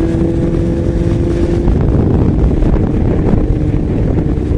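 Yamaha XJ6 600 cc inline-four motorcycle engine running while riding on the road, with wind noise on the helmet microphone. The steady engine note changes about two seconds in and settles again near the end.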